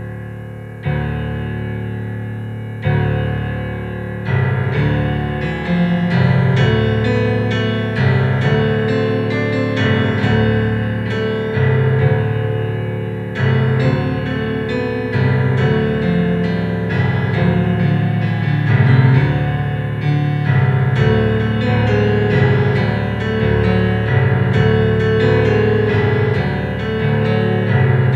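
Solo piano playing: a few sustained chords struck about two seconds apart, then a steady flowing melody over a bass line from about four seconds in.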